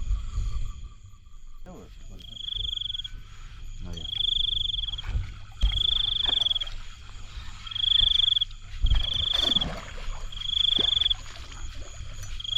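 A frog calling repeatedly: a high, trilled call, each just under a second long, repeated six or seven times about every second and a half after the first two seconds. A low rumble with a few dull thumps runs underneath.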